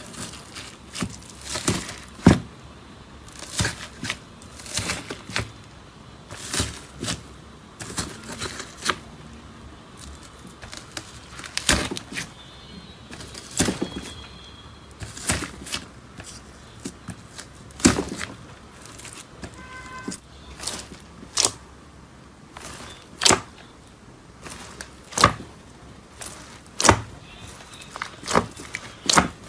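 Slime being squeezed and poked by hand, giving irregular sharp pops and clicks, several a second at times.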